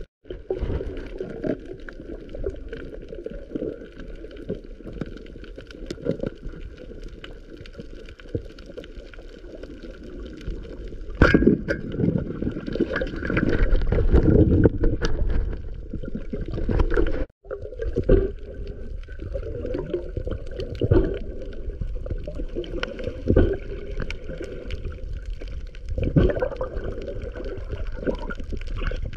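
Water gurgling and sloshing with heavy low rumbles that swell in the middle. The sound drops out for a moment about seventeen seconds in.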